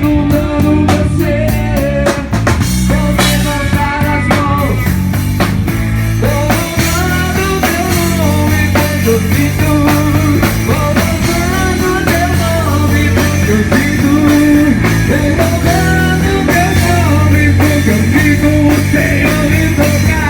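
Live band playing a rock-style worship song, with drum kit, guitar, bass and a melodic lead line, loud and steady.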